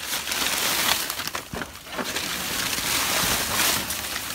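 Plastic bags, paper and dry leaves rustling and crinkling as the trash is disturbed, with a few sharper crackles.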